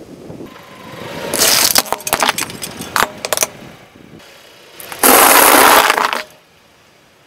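A car tyre rolls over and crushes small objects on asphalt: first a run of sharp snapping cracks, then about five seconds in a louder, dense crunching lasting about a second as dry fusilli pasta is ground under the tyre.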